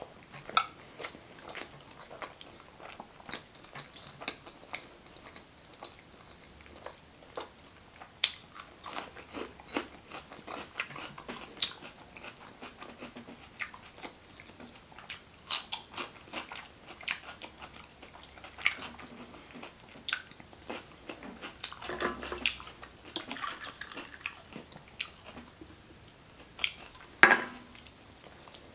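A person chewing and biting food, with many irregular wet smacks and soft crunches, and one louder knock near the end.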